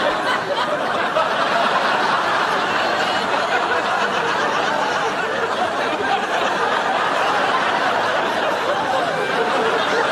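Studio audience laughing, loud and sustained.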